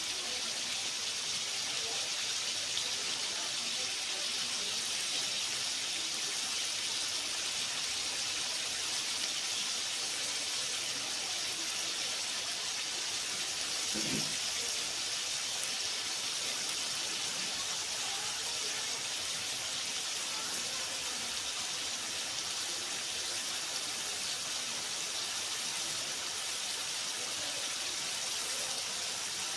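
Steady sizzling of food frying on a hot cooking surface, an even hiss with a brief low sound about fourteen seconds in.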